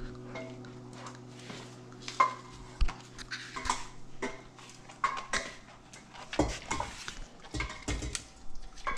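Scattered light clicks and clatter of a dog moving about on a tiled kitchen floor. A low steady hum underneath stops about six seconds in.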